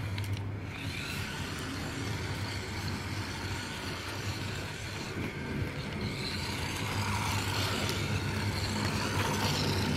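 Toy remote-control car's small electric motor whirring steadily as it drives, its tyres rolling on a concrete floor.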